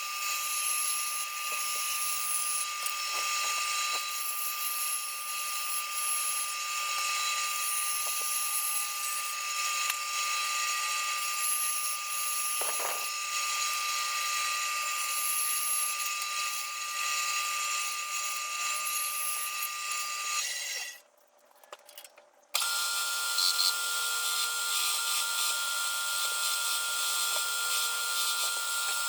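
A small high-speed power tool cutting wood: a steady high whine over a rasping cutting noise. It stops abruptly for about a second and a half, then runs on at a slightly higher pitch.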